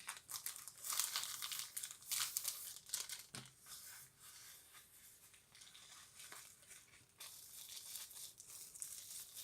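Packaging crinkling and rustling in irregular handfuls, with some tearing, as a boxed watch is unwrapped by hand.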